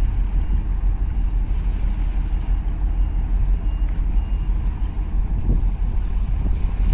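Steady, uneven low rumble of wind buffeting the microphone mixed with the drone of the large container ship OOCL Vancouver passing close by. A few faint, short high beeps from a distant reversing alarm come and go in the first half.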